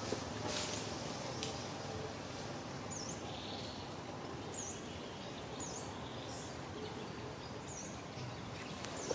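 Outdoor ambience in trees: a steady hiss of background noise with a short, high chirp every one to two seconds, and a single sharp click about a second and a half in.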